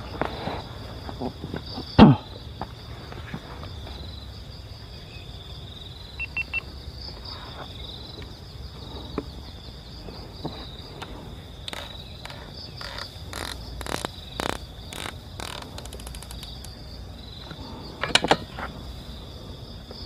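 Steady high-pitched chorus of insects calling. About two seconds in comes a single sharp, loud crack. Later there is a run of short clicks and knocks.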